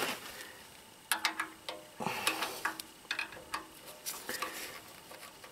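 Light, irregular metallic clicks and taps of a screwdriver working on a small engine's carburetor as the carburetor mounting is tightened.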